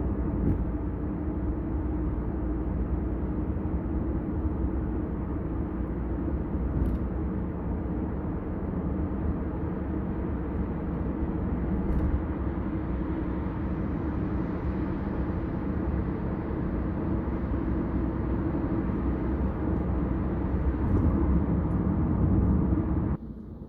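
Kia K5 driving at highway speed: steady road and tyre rumble with a constant engine hum, dropping suddenly in level just before the end.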